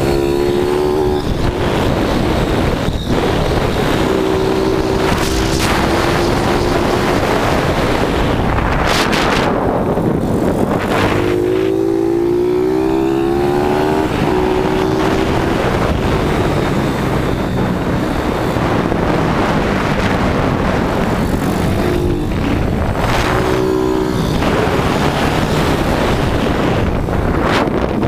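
YCF SP2 160 pit bike's single-cylinder four-stroke engine revving hard and easing off as it is ridden round the track, the pitch climbing and falling again several times through the lap. Heavy wind rush on the helmet-mounted microphone runs underneath.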